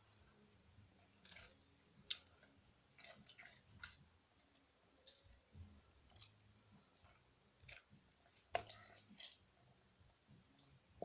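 Scattered faint clicks and soft taps, about a dozen at uneven intervals, the sharpest about two seconds in and about eight and a half seconds in.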